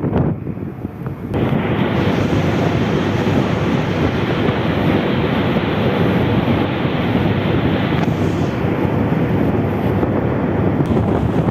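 Strong wind buffeting the microphone, a dense steady rumble that eases briefly at the start and comes back about a second in.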